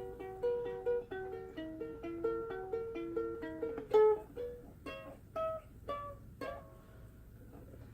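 Ukulele fingerpicked in an instrumental passage: a running line of single plucked notes, about three or four a second, thinning out about halfway through into a few ringing notes that fade away near the end.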